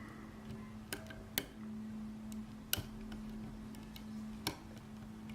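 Small sharp clicks of a lock pick and tension tool working the pins of a six-pin GERA euro-profile pin tumbler half cylinder, about five clicks spread irregularly over the few seconds. A faint steady low hum runs underneath.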